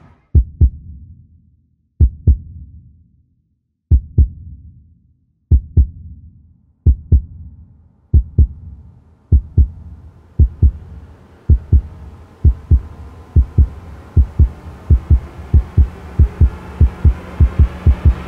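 Trailer-style sound design: deep double-thump heartbeat beats, about two seconds apart at first, coming faster and faster. From about halfway a hissing swell rises underneath and builds toward the end.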